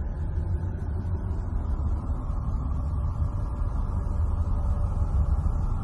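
Voyager 2 space-probe data from the Uranus system near the moon Miranda, converted into audible sound: a steady deep rumble under a hissing haze with faint held tones. It is the trace of the solar wind interacting with electromagnetic fields.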